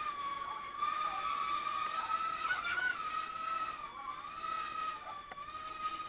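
Ultra-micro quadcopter's tiny motors and propellers whining in flight, a steady high-pitched tone that wavers a little in pitch as the throttle is worked, rising briefly a few seconds in and dipping around four seconds in.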